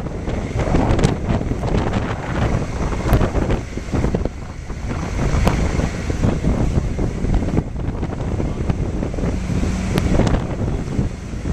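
Wind buffeting the microphone over the low rumble of a truck moving through floodwater, with water sloshing around its wheels.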